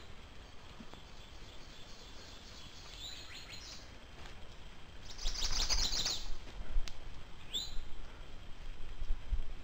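Wild songbirds singing in a forest: short high chirps now and then, and a louder rapid trill about five seconds in, over a low rumble.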